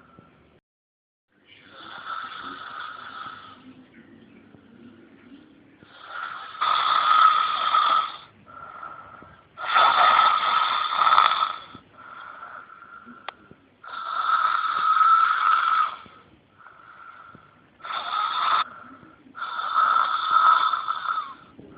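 A boy snoring loudly: six long snores of one to two seconds each, coming about every three to four seconds, with quieter breaths between them.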